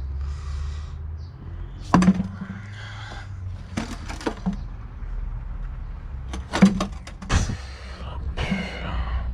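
A few sharp knocks and clatters, the loudest about two seconds in and again near seven seconds, over a steady low hum.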